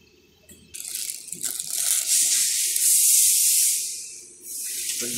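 A loud, steady rushing hiss that starts about a second in, dips briefly near the end, then comes back.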